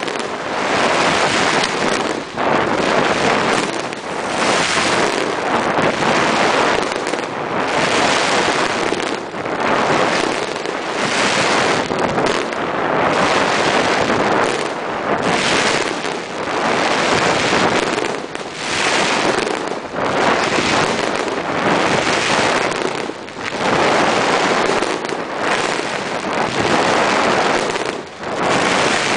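Aerial fireworks bursting in quick succession, a dense barrage of overlapping bangs and crackling with hardly a pause.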